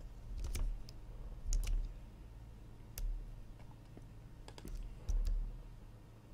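Computer mouse and keyboard clicks, each with a dull thump: about eight separate clicks spread unevenly over a few seconds.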